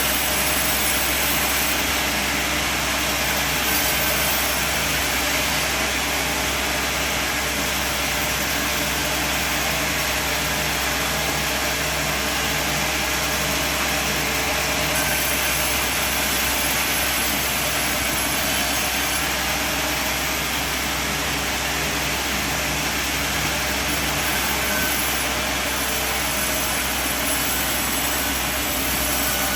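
Band sawmill running with a steady, even noise over a constant low hum.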